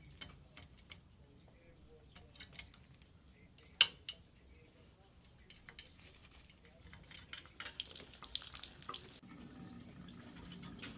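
Faint clicks and taps of metal valve parts being handled as a Watts mixing valve is taken apart, with one sharp click about four seconds in. A short hiss comes near eight seconds, and then a faint low hum sets in.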